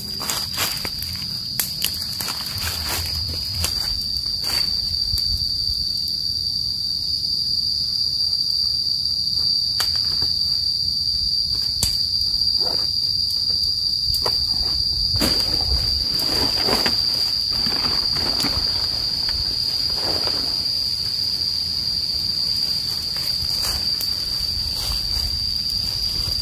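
Steady high-pitched drone of forest insects, with scattered crackles and rustles of dry leaf litter and leafy branches being stepped on and handled.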